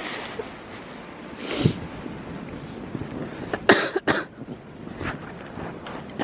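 A person coughing: a short cough about a second and a half in, then two sharp coughs in quick succession a little past the middle.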